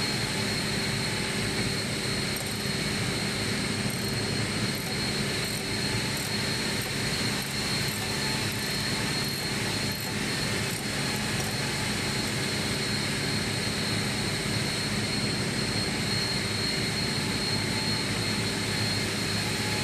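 Steady drone of running heavy machinery: a constant low hum under an even noise, with a thin steady high whine.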